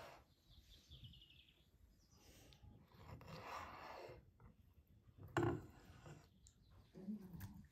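Kitchen knife sawing through eel on a wooden cutting board, a faint scraping, with a sharp knock of the blade on the board about five and a half seconds in.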